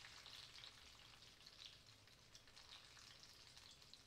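Breaded eggplant slices frying in a pan, sizzling faintly and steadily with a fine crackle.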